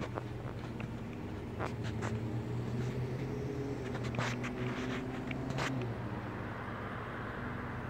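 A motor running with a steady low hum that stops about six seconds in, with a few light clicks over it.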